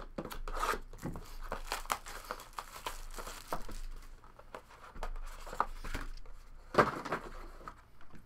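Plastic shrink wrap being torn and crinkled off a sealed trading-card box, with the rustle and clicks of hands opening the box and handling a clear plastic card case. One sharp knock late on.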